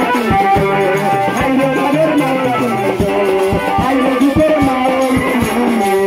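A Bangla folk song: a man singing into a microphone over a steady percussion beat and instrumental backing.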